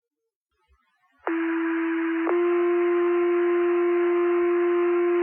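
Two-tone sequential paging tones sent over the fire-dispatch radio channel, with radio hiss behind them. One steady tone sounds for about a second, then changes to a second tone held for about three seconds before cutting off. This is the alert that sets off the volunteer firefighters' pagers.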